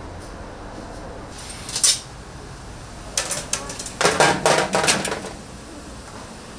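Metal kitchenware clattering: a sharp clink just under two seconds in, a few knocks a little after three seconds, then a dense run of clattering lasting about a second.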